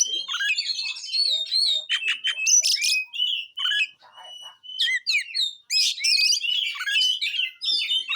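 Oriental magpie-robin (kacer) singing a fast, varied song of whistles, chirps and rising and falling notes, with a short lull about halfway through.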